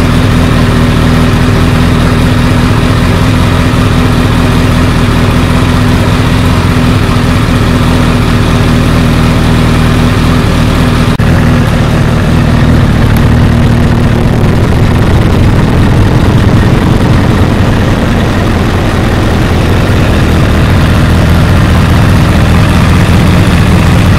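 2014 Honda CBR1000RR's inline-four idling steadily through a TSR slip-on muffler, recorded right at the exhaust outlet. It is loud and slightly distorted by recorder clipping.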